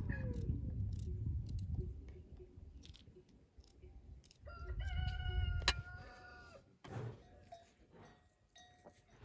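A rooster crowing once, a single held call of about two seconds near the middle, with a sharp knock partway through it. A few faint knife taps on a wooden cutting board around it.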